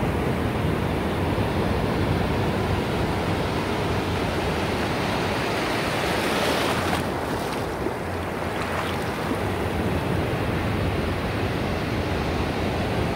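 Ocean surf breaking and washing on a beach shore in a continuous rush, with one wave's hiss swelling about halfway through and cutting off sharply.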